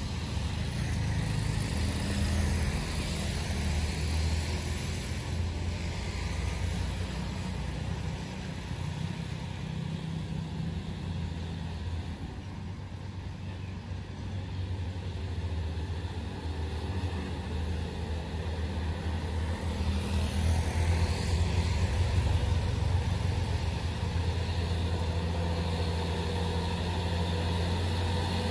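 Mitsubishi Fuso 220PS dump truck's diesel engine pulling under load up a hill, a steady low drone that grows louder as the truck comes close near the end.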